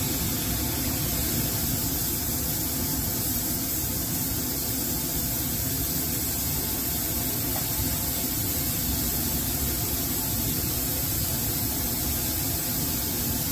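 Steady hiss of a laboratory vacuum line pulling air and cold methanol through a Büchner funnel and filter flask during vacuum filtration, with a faint low hum underneath.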